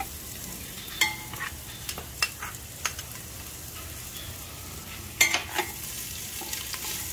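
Sliced ginger sizzling in hot cooking oil in a stainless steel pot, the first step of a sauté. A metal slotted turner clinks against the pot several times as it stirs, loudest about a second in and just past five seconds.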